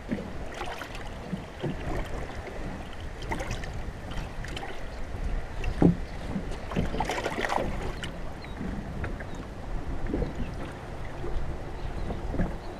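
Choppy lake water slapping against the hull of a small fishing boat, with wind rumbling on the microphone. Scattered knocks and splashes run through it, and a sharp thump about six seconds in is the loudest sound.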